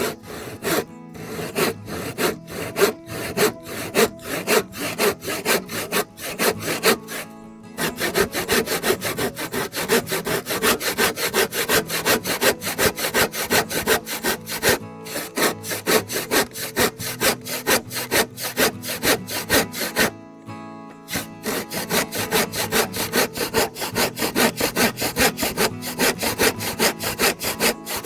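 Handsaw cutting through wood with quick, even back-and-forth strokes, about three a second, pausing briefly twice.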